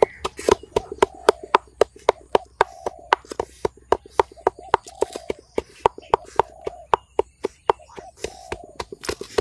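Quick series of sharp knocks, about three to four a second, with short low tonal sounds between them.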